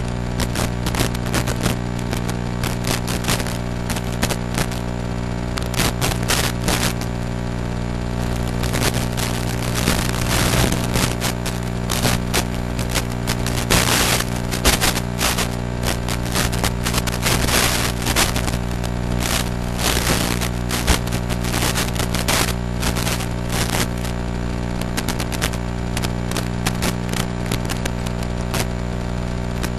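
Steady electrical buzz on an FPV drone's analog video-link audio, overlaid by crackling static that thickens for several seconds in the middle as the radio signal weakens and the picture breaks up.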